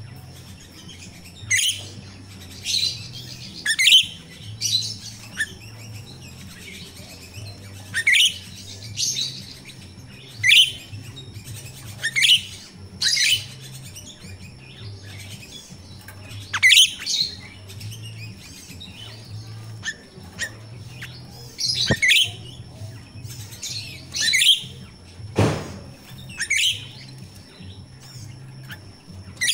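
Grosbeak starling (jalak rio-rio) calling: short, sharp chirps that drop in pitch, given one at a time or in quick pairs every second or two, with short pauses between.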